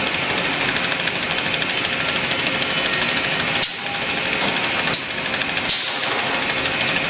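Cameron Quick Rip saw running with a steady, dense machine noise, broken by sharp knocks about three and a half, five and nearly six seconds in.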